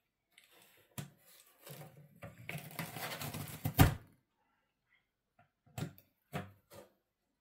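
Cats moving in and against a cardboard box, with knocking and rustling of the cardboard. There is a single knock about a second in, rustling until about four seconds in that ends in the loudest knock, then three short knocks near the end.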